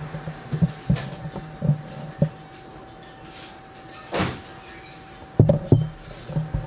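A few short, dull knocks and thumps, scattered through the first two seconds and again near the end, with a brief rushing noise about four seconds in. A faint steady high whine runs underneath most of it.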